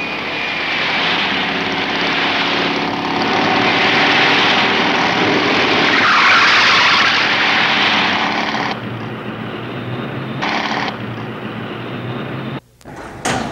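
Loud, steady rushing vehicle noise with an engine drone under it, dropping to a lower, quieter rumble about nine seconds in, with a brief cut-out near the end.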